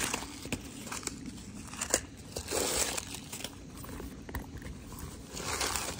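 Crinkling of tissue wrapping paper and scattered light clicks as a leather handbag is handled and opened.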